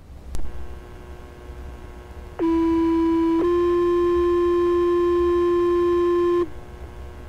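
Two-tone sequential fire paging tones over a scanner radio, alerting the fire department's pagers before the voice dispatch. About two and a half seconds in, a steady tone sounds for about a second, then steps straight into a slightly higher tone held about three seconds before cutting off. Radio hiss and hum run under it, with a squelch click near the start.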